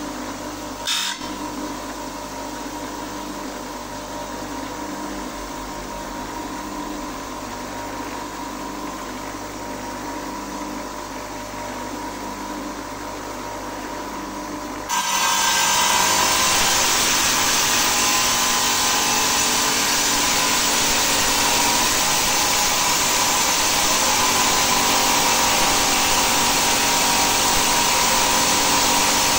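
Stone-cutting saw motor running with a steady hum. About fifteen seconds in, a much louder, harsh grinding hiss starts suddenly and holds: the blade cutting into agate.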